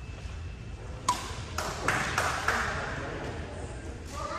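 A sharp click with a short ring about a second in, followed by a quick run of knocks and clatter, echoing in a large gym hall.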